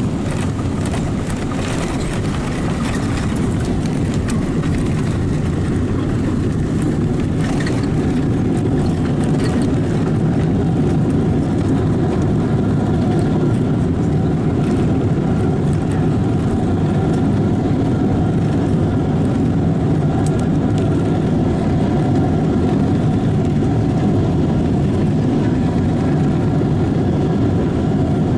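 Loud, steady rumble and roar inside the cabin of a Boeing 777-300ER during its landing roll, with its GE90 engines and the wheels on the runway. A few light knocks come in the first seconds, and the noise grows a little louder about ten seconds in as the spoilers stand up on the wing.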